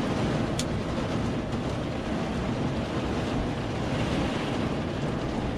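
Thunderstorm rain, with wind, beating steadily on a vehicle's roof and body, heard from inside the cab.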